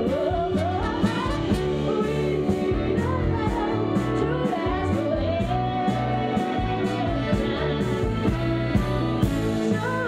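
Band playing: a woman's lead voice sings over electric guitar, bass and drums. She holds one long note through the middle.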